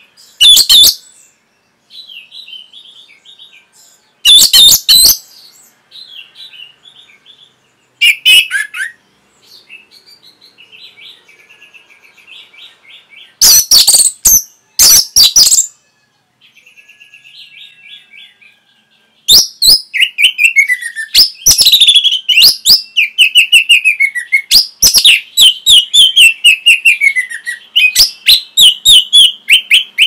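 Orange-headed thrush (anis merah) singing. Soft twittering is broken by a few short, loud bursts of song; about two-thirds of the way through it breaks into a long, loud run of rapid notes with repeated falling phrases.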